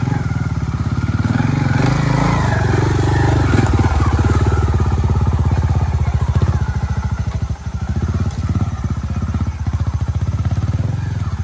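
Trials motorcycle engine running at low revs while the bike is ridden over logs on a steep slope, the revs rising and falling with the throttle, busiest two to four seconds in.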